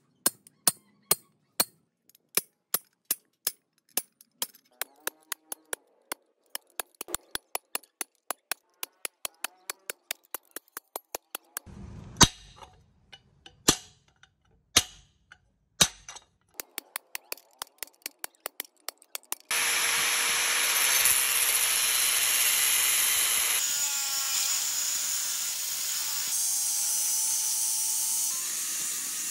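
A hammer striking a cold chisel held on thin steel sheet, sharp metallic taps about three a second, cutting out a shape. About two-thirds of the way through, an angle grinder with a cutting disc starts and runs steadily, cutting the steel.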